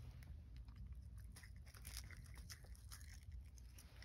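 A cat chewing seasoned nori (dried seaweed): a faint run of small, crisp crunching clicks.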